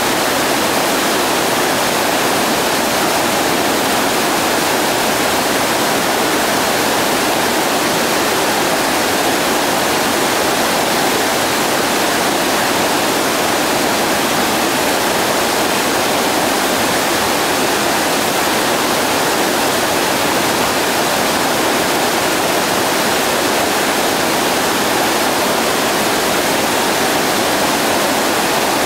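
Loud, steady rush of a whitewater rapid, the river pouring over and around boulders.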